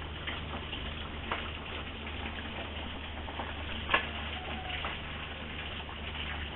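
Sauce in a wok coming to the boil, bubbling with many small pops over a steady low hum, a sign the dish is nearly cooked. A single sharp click about four seconds in.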